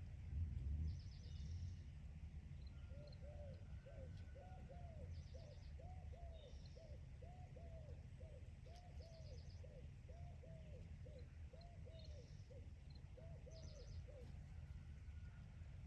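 A dove cooing softly: a long run of short rising-and-falling coos, about two a second. A small bird chirps high a few times over a low steady outdoor rumble.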